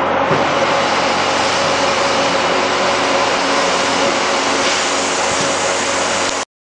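Factory machinery running with a steady, loud, even noise and a constant hum, which cuts off abruptly near the end.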